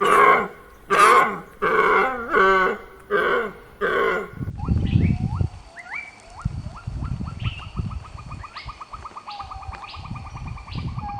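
Wild animal calls: about seven loud, pitched calls repeated at an even pace, then a change to low rumbling with high chirps and a fast trill.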